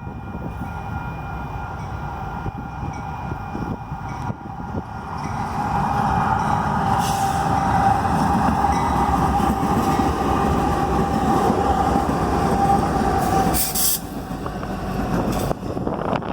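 Union Pacific train passing close by with a heavy rumble that grows louder about five seconds in. A steady high-pitched tone rides over it for about eight seconds, then stops.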